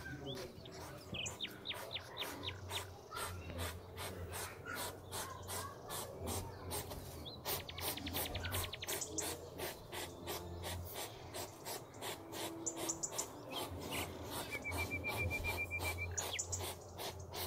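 Hedgehog's faint snuffling and clicking breaths, with a few short high-pitched chirps and a brief pulsing whistle near the end.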